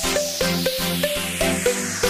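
Background electronic dance music with a steady beat and a short repeating melody.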